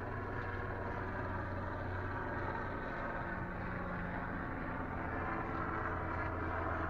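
A boat engine running steadily, a constant low drone with a wash of noise above it.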